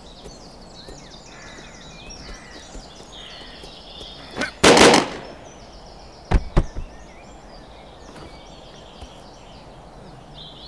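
Pistol shots in a duel: one loud bang with a short tail about four and a half seconds in, then two sharp cracks close together about two seconds later, over steady birdsong.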